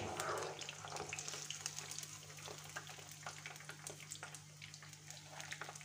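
Eggplant cubes frying in hot seed oil, a steady sizzle full of small crackles, with a sharp metallic clink right at the start as the wire skimmer scoops pieces out of the pan.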